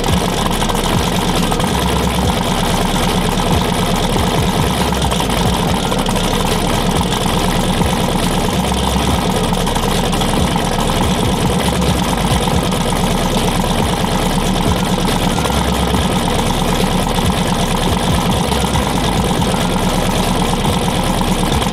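Drag car's V8 engine running at a steady idle, loud and unchanging.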